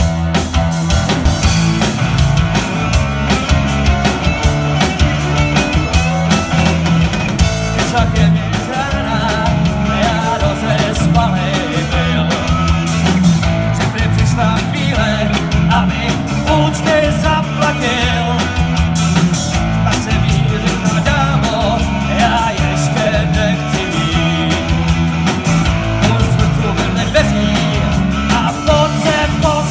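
Live rock band playing loudly: distorted electric guitars over a steady drum beat and heavy bass notes.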